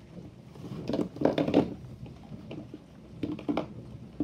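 Small plastic hand-sanitizer bottles being handled, knocking and rattling against each other in a few short clusters. The loudest clatter is about a second and a half in.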